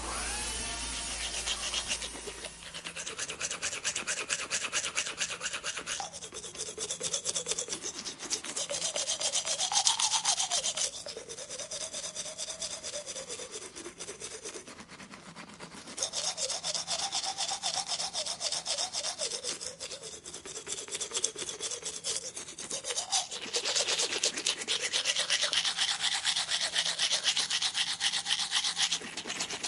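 A dental instrument working on teeth: a rapid scraping buzz whose faint pitch wavers up and down. It eases off twice and comes back stronger in the second half.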